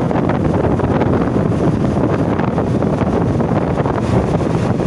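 Wind rushing and buffeting over the microphone of a motorcycle riding at about 50 km/h, with the bike's engine running steadily underneath.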